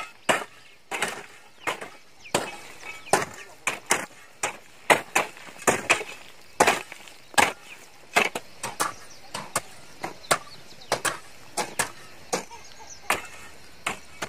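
Two steel-bladed hand hoes chopping into dry, clumpy soil: sharp strikes in an uneven run of about one to two a second, overlapping now and then.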